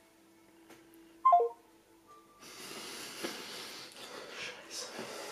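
A smartphone sounds a short falling three-note beep, the tone of a call ending. Then a man stifles a laughing fit, snorting and wheezing breaths through his nose and mouth.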